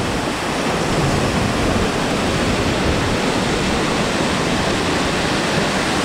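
Waterfall pouring over rock close to the camera: a loud, steady rush of falling water.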